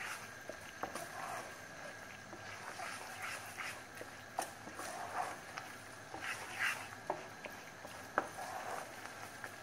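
A wooden spatula scrapes and knocks irregularly against a nonstick frying pan while flour is stirred and toasted in melted margarine and oil for flour halva. There is a sharper knock near the end.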